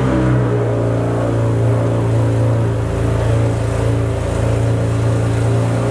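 BMW 335i's twin-turbo inline-six running steadily, just after being started.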